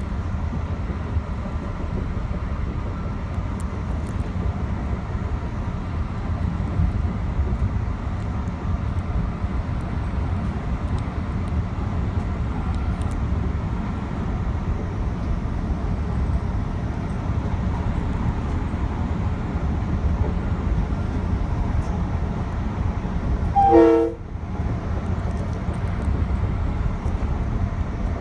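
Metro-North commuter train running on the Hudson Line, a steady low rumble of wheels and running gear heard from inside the front car. Late on, a train horn sounds one short blast.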